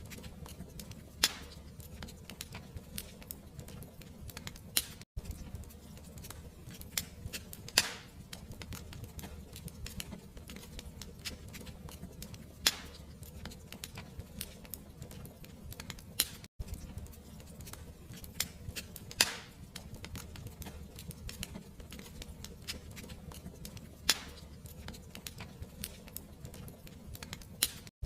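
Fire crackling steadily over a low rumble, with a louder pop every few seconds. The sound drops out for an instant three times.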